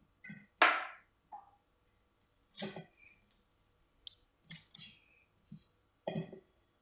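Kitchen knife cutting through a ridge gourd and knocking on the countertop, with pieces set down on a ceramic plate: about seven short, separate soft knocks and clicks, the loudest a brief sound near the start.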